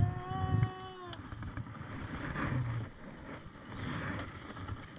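Wind on the microphone and low rumbling noise aboard a small wooden boat at sea. For about the first second a steady pitched tone sounds, dipping slightly in pitch as it stops.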